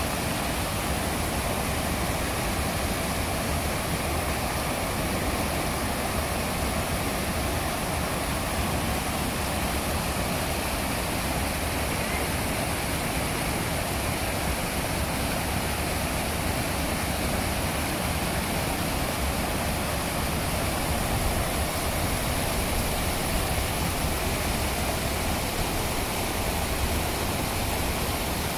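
Small river rapids pouring over low rock ledges: a steady rushing of whitewater, even throughout.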